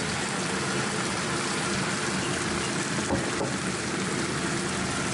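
Wild leeks, chili and bacon sizzling and bubbling in a frying pan just after a shot of cooking wine, a steady hiss. Two faint clicks about three seconds in.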